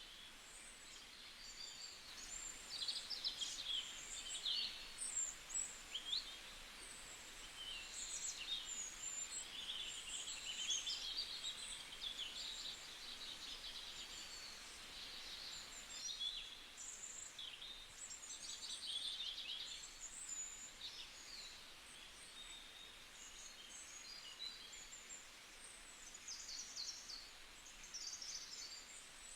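Faint chorus of small wild birds chirping and trilling in short, high calls that come and go.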